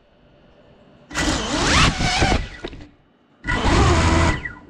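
GEPRC 5-inch FPV quadcopter's brushless motors and propellers spinning up in two short bursts of loud, rising whine about two seconds apart, each cutting out again, while the drone lies crashed and stuck after hitting the furniture.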